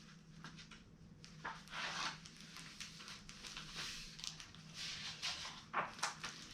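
Soft rustling and scattered light clicks, as of something being handled or shifted, over a faint steady low hum; a few sharper ticks come near the end.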